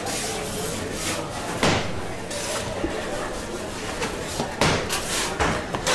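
Busy pizzeria kitchen: a steady din of background voices and work noise, with sharp knocks and clatters, one about a second and a half in and several near the end.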